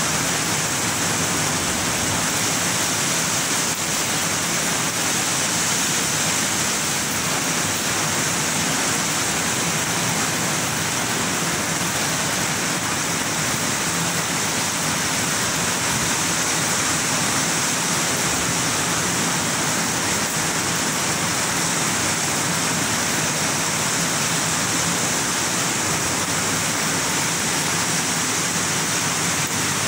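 Heavy rain falling, a loud steady hiss with no let-up.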